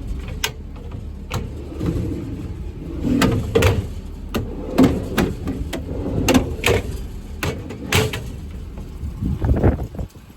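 Metal drawers and compartment doors of a truck's service body being pulled open and pushed shut: a string of sharp clanks, clicks and rattles over a low steady rumble.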